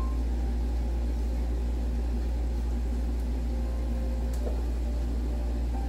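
Steady low hum of a running fan motor, with a faint light clink about four and a half seconds in.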